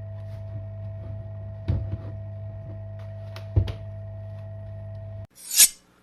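Steady electrical hum with a few light clicks and taps, two of them louder; the hum cuts off suddenly near the end and a brief swelling hiss follows.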